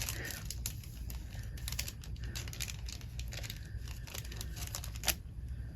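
Light crinkling and small taps of a plastic-sleeved set of tab bookmarks being handled, with one sharper click about five seconds in.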